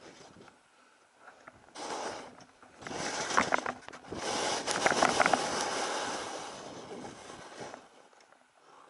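Skis turning through deep powder snow: a hiss of sliding and sprayed snow that swells with each turn, three times, the last one longest and loudest, with a few crisp crunches of snow inside the swells.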